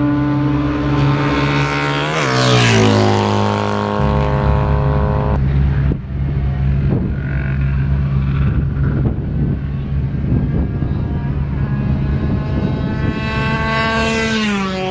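Classic racing motorcycle passing close at speed, its engine note dropping sharply in pitch as it goes by about two seconds in. Engine sound carries on as bikes run on down the track, and near the end another motorcycle's note falls as it passes.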